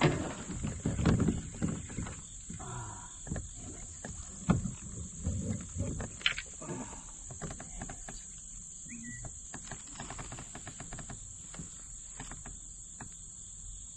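Crickets chirring steadily while fishing gear knocks and bumps against a plastic kayak, loudest in the first two seconds and again about four and a half seconds in. Later comes a run of light, quick clicks.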